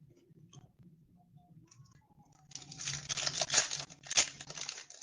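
Faint clicks, then about two and a half seconds in a trading-card booster pack's foil wrapper is torn open and crinkled, a dense run of sharp crackles.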